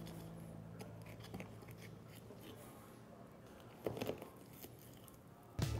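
Faint sounds of a knife cutting venison shoulder meat and the meat being peeled away from the bone on a cutting board: small scattered clicks and tearing, with a louder stretch of cutting about four seconds in. Background music fades out at the start and comes back in near the end.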